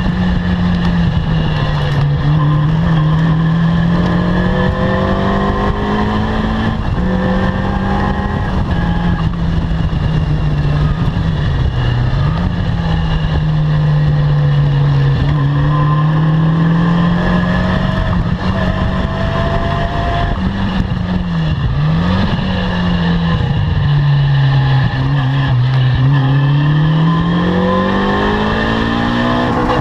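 Caterham Seven R300's four-cylinder engine being driven hard on a race track. The revs climb and fall continuously through the gears, with quick dips at gear changes and a long pull up the rev range near the end.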